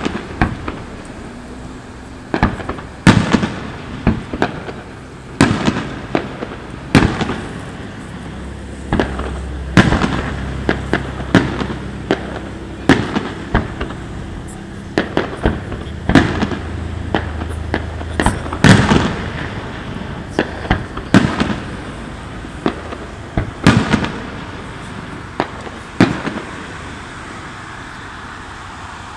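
Aerial fireworks bursting in a continuous display: sharp bangs every second or two, some in quick crackling clusters, with echo trailing after them.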